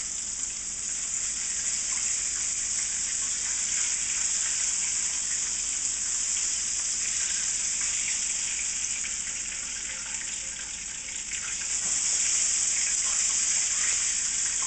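Breaded, prosciutto-wrapped chicken deep-frying in hot oil in a wok: a steady sizzling hiss with fine crackle, the pieces floating in the oil. It eases a little about ten seconds in and grows louder again a couple of seconds later.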